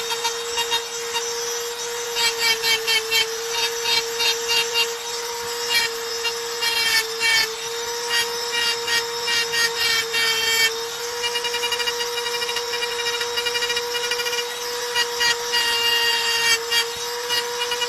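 Handheld electric rotary engraving tool running with a steady high whine while its bit scratches and chatters against the stone in short, quick strokes as lines are cut.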